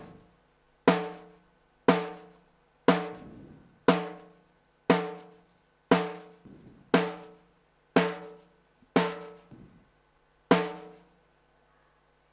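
A pipe band drum struck singly about once a second to keep time, each beat ringing briefly; about ten beats, stopping shortly before the end.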